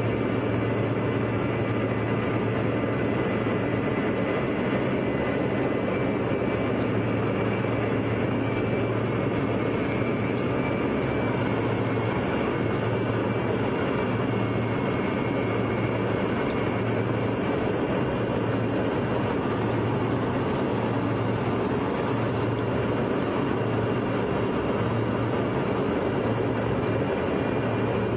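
Steady in-flight cabin noise of a passenger airplane: an even rush of airflow and engine drone with a low hum underneath.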